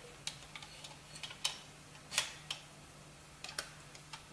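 Light metallic clicks and taps of the 9A-91 rifle's upper assembly (folding stock, receiver cover and recoil spring) being worked onto the receiver by hand, its lugs being fitted into their slots. The clicks come singly and irregularly, about eight in all, over a faint steady hum.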